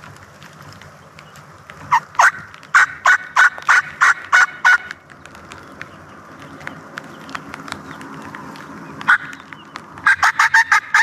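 Turkey yelps: a run of about nine loud, evenly spaced notes, a single note some seconds later, and a quicker run of notes near the end.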